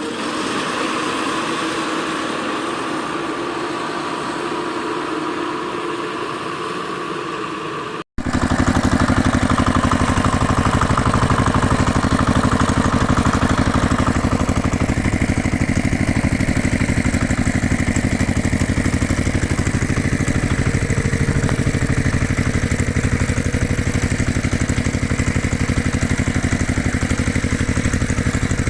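An engine idling steadily. About eight seconds in, the sound cuts out briefly and comes back as a louder idle with a fast, even pulse that holds to the end.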